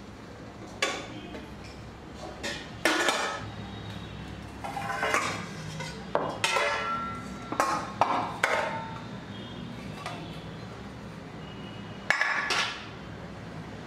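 Stainless steel cookware clanking and clinking: a steamer pot, plate and bowl knocked together as a steamed batch is lifted out and handled, a run of separate knocks, some ringing briefly, busiest in the middle, with a last clatter near the end.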